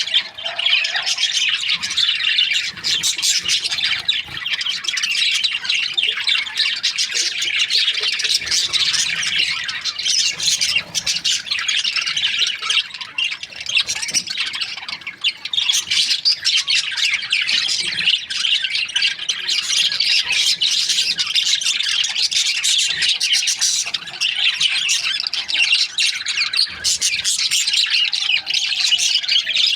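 A flock of budgerigars chirping and chattering together in a dense, unbroken stream of high-pitched calls.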